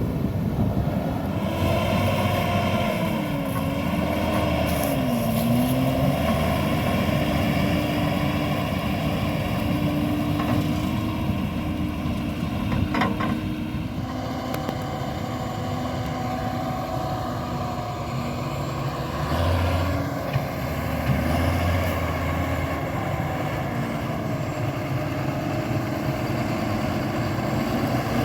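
John Deere 7430 Premium tractor's six-cylinder diesel engine running steadily under load while pulling a slurry tanker. The engine pitch dips and recovers twice in the first few seconds, then holds steady.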